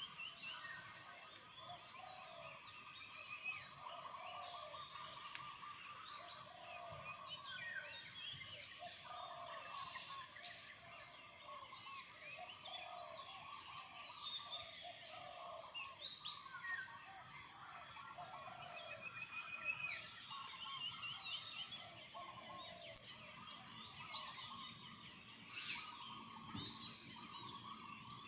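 A chorus of many birds chirping and trilling, over a faint steady high whine.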